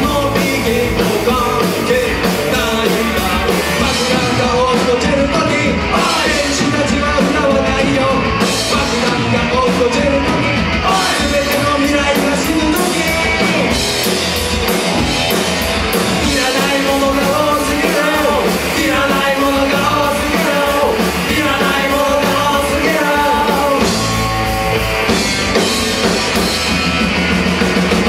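Live punk rock band playing: electric guitar, electric bass and drum kit, with a male lead singer's voice over them at times.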